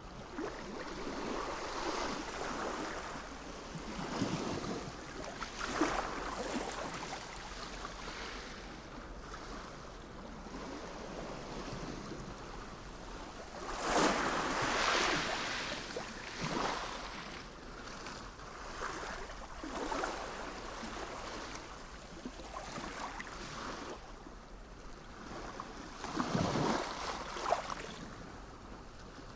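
Sea waves breaking and washing in, rising and falling in surges, with the strongest waves about halfway through and again near the end.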